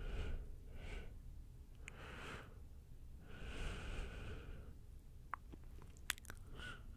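Soft whispering close to the microphone: several short breathy phrases, with a few small clicks in the second half.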